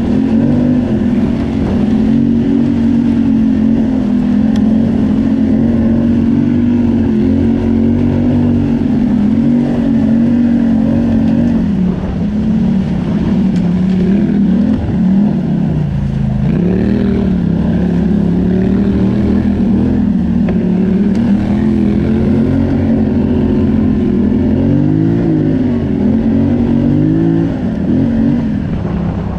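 ATV engine running under way, its pitch falling and climbing as the throttle is eased and reopened, with a clear dip about halfway through before it picks up again.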